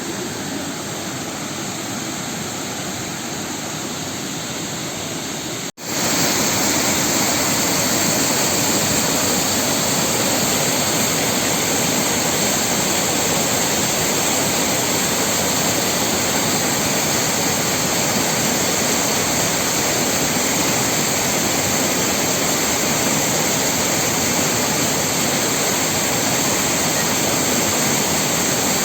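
Waterfall: a steady, loud rush of falling water. It cuts out for an instant about six seconds in and comes back a little louder.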